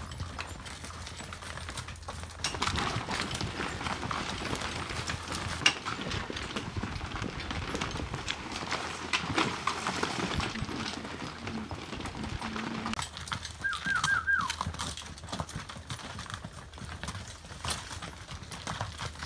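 Hooves of a string of pack mules clip-clopping and scraping irregularly on a rocky trail, busiest through the first two-thirds. Near the two-thirds mark there is a brief run of four quick, high, falling chirps.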